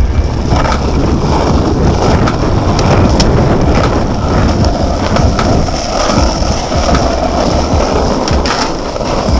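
Skateboard wheels rolling over rough asphalt: a steady, loud rumble, with a few sharp clacks along the way.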